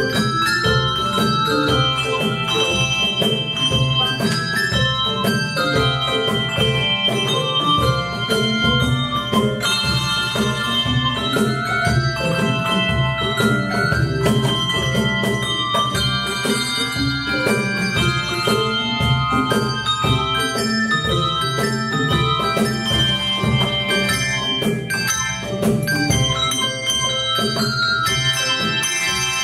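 Handbell choir playing a piece: many tuned handbells struck in quick succession and in chords, their tones ringing on and overlapping.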